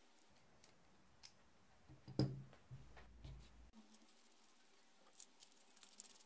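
Small clicks and light knocks of plastic and metal parts being handled and fitted together on a Dremel VersaTip butane soldering iron, with one louder knock about two seconds in followed by brief rustling, and a cluster of quick clicks near the end.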